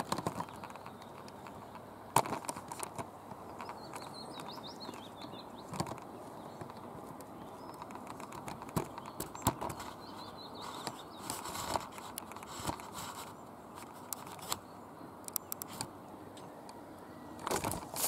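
Scattered clicks, knocks and rustles of close handling around a hollow tree trunk, with faint birdsong in the background and a louder flurry of rustling near the end.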